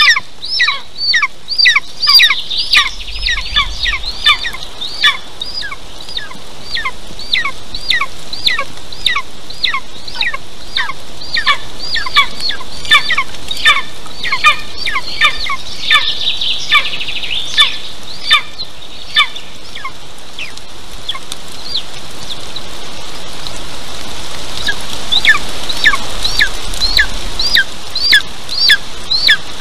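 Golden eaglet calling from the nest: a long series of high, downslurred calls, about two a second. They thin out about two-thirds of the way through, then pick up again near the end.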